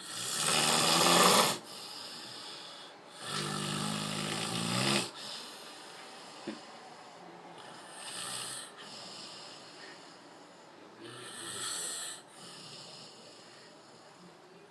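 Loud snoring: two big snores in the first five seconds, the first the loudest, then quieter snores about every three to four seconds.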